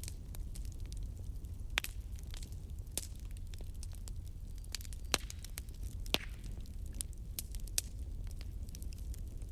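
Wood fire burning in a fireplace: a steady low rumble of flames with frequent small crackles and a few sharper pops of burning wood.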